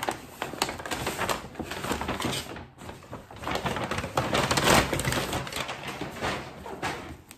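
Packaging rustling and crinkling as a parcel is unwrapped by hand, in a dense run of quick crackles with a short lull about three seconds in, fading near the end.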